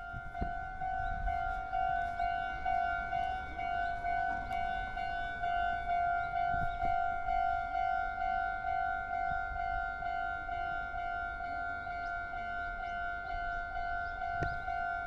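Japanese railroad crossing alarm ringing its 'kan-kan' warning: a steady, evenly repeated electronic tone.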